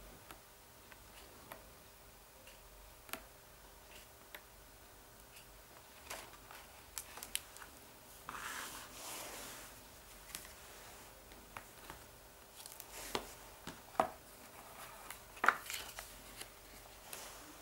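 A hardcover picture book handled on a wooden table: pages turning with soft paper swishes and scattered small taps and clicks. There is a longer sliding rustle about eight seconds in, and a few sharper knocks of the book and its cover near the end.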